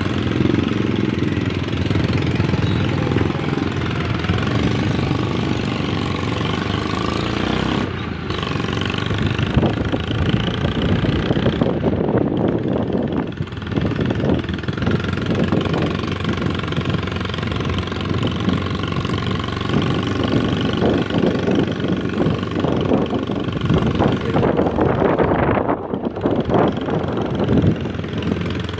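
Vehicle engine running steadily as it drives along, a continuous rumble with a faint steady whine above it.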